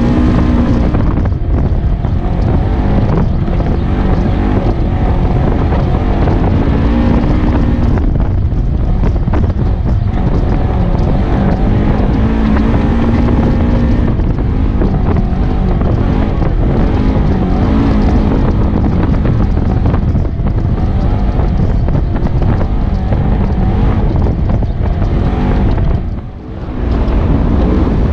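Polaris RZR 900 S side-by-side engine running under way on a dirt trail, its note rising and falling with the throttle, with wind buffeting the microphone. The sound dips briefly near the end.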